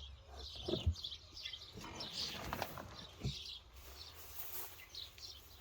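Birds chirping faintly, with a few soft knocks.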